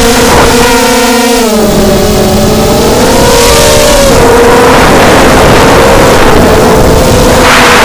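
Brushless motors and propellers of a 250-size FPV racing quadcopter (DYS BE1806 2300 kV motors on 4S) whining loudly, the pitch dropping and rising with the throttle as it banks. Gusts of wind rush sweep across the onboard microphone a few times.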